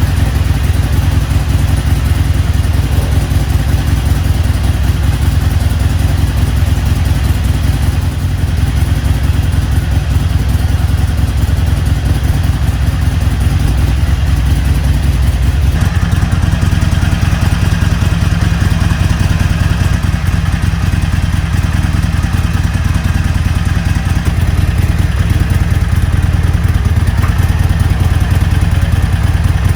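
Harley-Davidson Iron 883's air-cooled V-twin engine idling steadily after a jump start from a car, its note shifting about halfway through.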